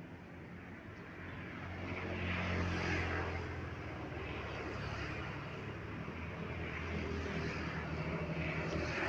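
An engine running with a steady low hum, swelling louder about two to three seconds in.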